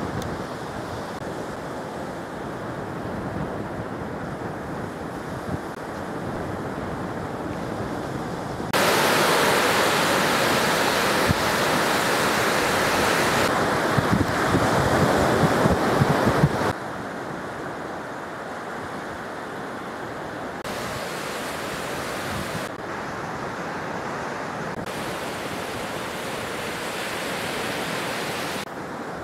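Sea surf washing onto a sandy beach with wind buffeting the microphone. The noise jumps abruptly louder and gustier about nine seconds in, then drops back just as suddenly about eight seconds later.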